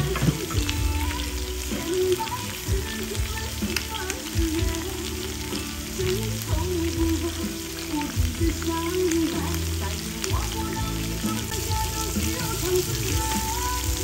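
Food sizzling steadily on a round Korean barbecue grill pan over a portable gas burner: king oyster mushrooms, enoki, scallops and fried tofu grilling. A Chinese pop song plays in the background.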